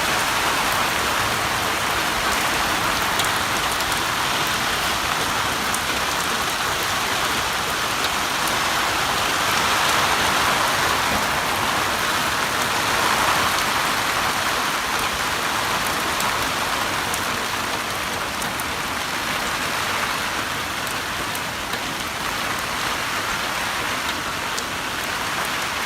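Heavy rain pouring down steadily, a dense even hiss that swells slightly now and then.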